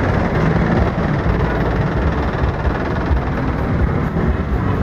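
Steady, loud street traffic noise close beside angkot minivans, with their engines and passing motorcycles mixed into a continuous rumble and no single event standing out.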